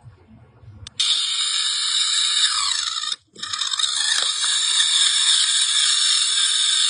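Electric pepper grinder running and grinding black peppercorns: a loud steady whirr that starts about a second in, cuts out briefly just after three seconds, then runs on.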